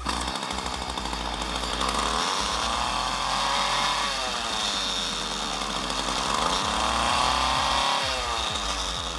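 Poulan Pro string trimmer's small two-stroke engine running on a newly installed replacement carburetor, revved up and let back down twice.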